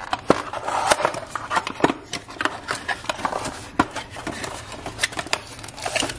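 Small cardboard box being opened by hand: its flaps pulled and folded back, giving irregular cardboard clicks, taps and scraping rustles.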